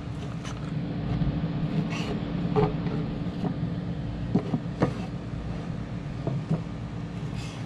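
A steady low mechanical hum, with scattered short clicks and knocks at irregular moments.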